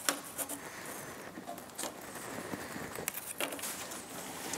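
Thin wooden strips being laid down and slid across a table saw's top by hand: light scraping broken by several sharp little clacks of wood on the table.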